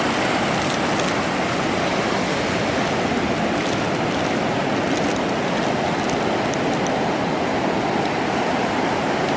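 Ocean surf washing onto a sandy beach, a steady even rush of water with no breaks.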